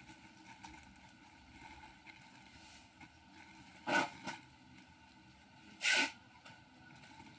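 Two short rustles about four and six seconds in, from plastic-packed fabric items being handled, over a low steady background hum.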